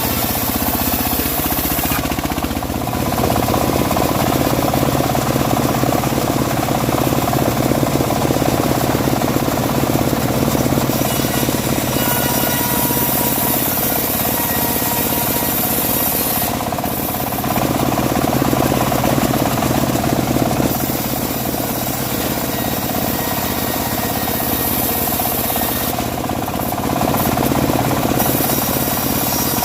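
Homemade bandsaw mill running and sawing dry teak: a steady machine hum under the rasp of the blade in the wood. The cutting noise swells and eases every few seconds.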